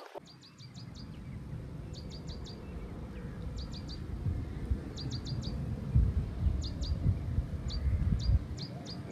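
A small bird calling in quick groups of three to five short, high chirps, repeated every second or so, over a low, uneven rumble.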